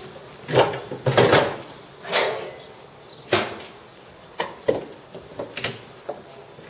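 Sharp metallic clanks and knocks, about seven spread unevenly over a few seconds, from a railway coupling and its fittings being worked by hand between a locomotive and a coach.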